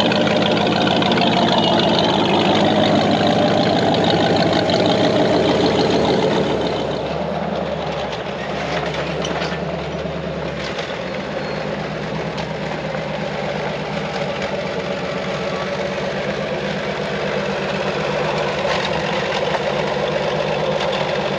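Off-road vehicle engines running at a low crawl over rock, with a steady low firing rhythm. Louder for the first six or seven seconds, then steadier and a little quieter.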